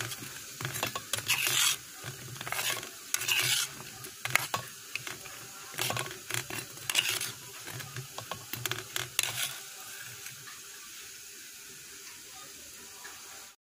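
A steel slotted spoon scraping and clinking against a steel pan as badushas are stirred and turned in sugar syrup, in irregular strokes for about ten seconds, then a steady faint hiss that stops abruptly near the end.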